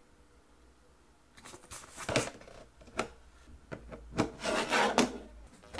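Handling noise from a homemade cardboard MIDI controller: after a quiet second or so, the casing is rubbed and scraped, with a few sharp knocks. A cable plug is pushed in about four seconds in, power-cycling the controller to test its saved settings.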